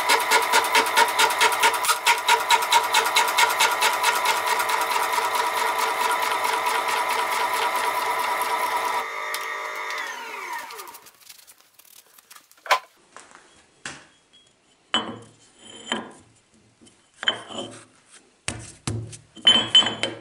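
Small metal shaper running, its ram stroking back and forth as a slotting tool takes a light 0.5 mm cut in a metal plate. About nine seconds in the machine is switched off and runs down with a falling pitch, followed by scattered scrapes and knocks as a rusty plate is handled on the machine.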